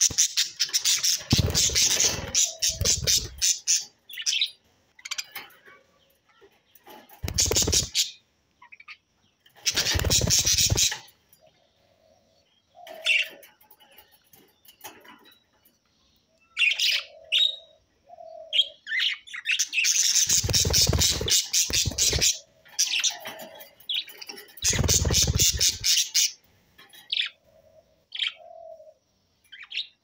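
Several budgerigars chirping and chattering in quick high bursts and clusters. Five times a louder, noisy burst about a second long sounds over the chatter.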